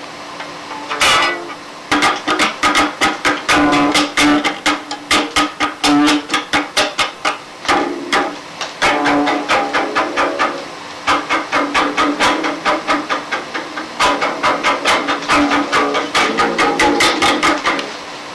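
Live band music from a mono cassette recording: fast, even strokes on an instrument, about five a second, over a held note, with a few short breaks.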